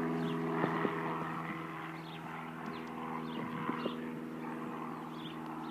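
Steady engine drone at a constant pitch, with a few light clicks over it.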